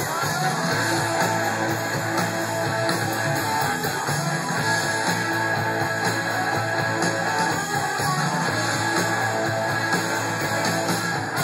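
Live punk rock band playing loud, with distorted electric guitars, bass guitar and drums.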